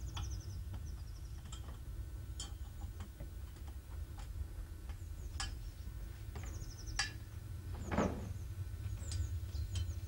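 Scattered knocks and clicks of a wooden chair and an aluminium ladder as the chair is carried up a ladder and set onto a platform, with one louder knock about eight seconds in. A small bird chirps in short rapid trills several times over a steady low rumble.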